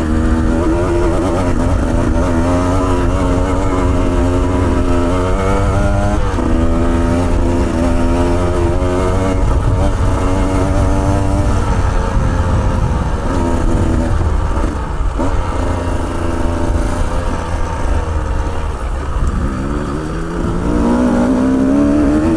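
Dirt bike engine, about 150cc, running under constantly changing throttle, its pitch rising and falling as it is ridden over rough track. A steady low rumble lies underneath. Past the middle it eases off for several seconds, then revs up again with a rising pitch near the end.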